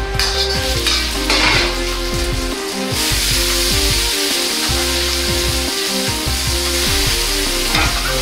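Food sizzling in a hot wok: a dense, loud sizzle sets in abruptly about three seconds in as green beans and Shaoxing rice wine go into the hot oil, with the ladle clinking and scraping against the wok.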